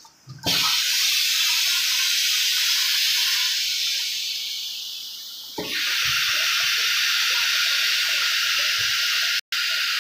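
Compressed air hissing from a pneumatic PVC pipe coupler-forming machine as it works the pipe end into a socket. The first hiss starts suddenly about half a second in and slowly weakens. A second steady hiss cuts in abruptly a little past halfway and holds.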